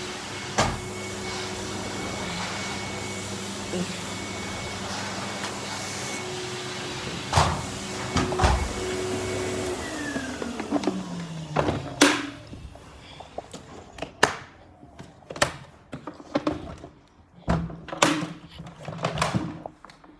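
Numatic HenryXtra cylinder vacuum cleaner running with a steady whine, with a few knocks. About ten seconds in it is switched off and its motor winds down with a falling pitch. A series of separate knocks and thumps follows.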